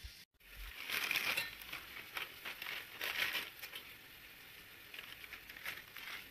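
Crinkling and crackling of a Maggi instant noodle packet being handled as the dry noodle cakes go in, in a dense run of bursts for about two and a half seconds, then a few fainter crinkles.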